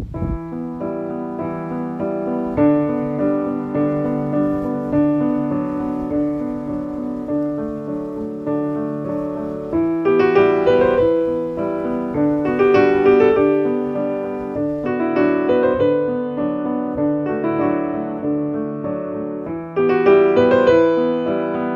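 Piano music playing, with sustained chords and melody notes; it grows louder and fuller about ten seconds in.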